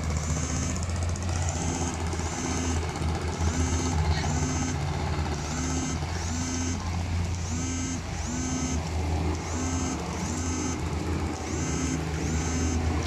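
Outboard long-tail boat engine running steadily on the river, a constant low drone. Over it, a short repeating chirp sounds about once or twice a second.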